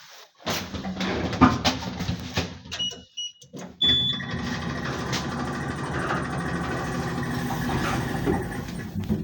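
KMZ passenger elevator in use: clicks and knocks, then a sharp start about four seconds in. After that the car runs with a steady mechanical noise and squeaking.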